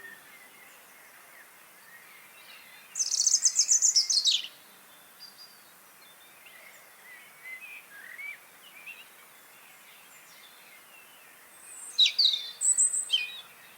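Small birds calling: a fast, high trill of rapid notes about three seconds in and another burst of sharp high calls near the end, with scattered faint chirps between, over a faint steady hiss.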